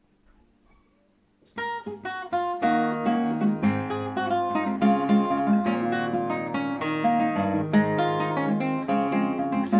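Nylon-string classical guitar played solo: after about a second and a half of near silence, plucked notes start and run on as a steady, rhythmic accompaniment.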